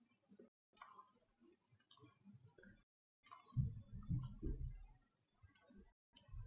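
Computer mouse clicking, about six short sharp clicks spread over a few seconds, placing lines in a drawing program. A low knocking rumble, the loudest sound, runs from about three and a half to five seconds in.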